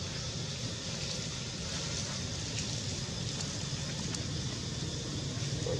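Steady outdoor background noise: a low rumble with a fainter hiss above it and a few faint ticks.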